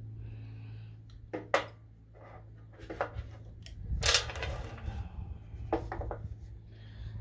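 Metal clinks and taps of small engine parts and hand tools being handled, a handful of sharp clicks with the loudest knock about four seconds in, over a steady low hum.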